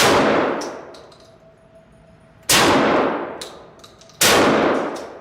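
Three shots from an IWI Tavor TS-12 semi-automatic 12-gauge shotgun: one at the start, one about two and a half seconds in, one less than two seconds after that. Each shot rings out and fades over more than a second.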